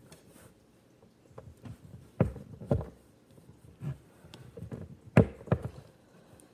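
Handling noise from weaving paracord through loops with a fid: a series of irregular knocks and taps, the loudest pairs about two seconds in and about five seconds in.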